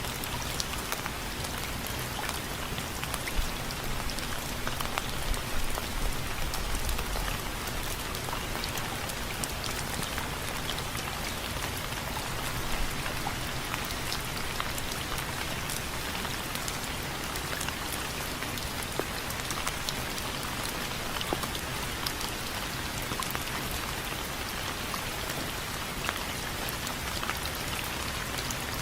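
Steady rain falling and dripping on window frames, a dense even patter with scattered sharper drops.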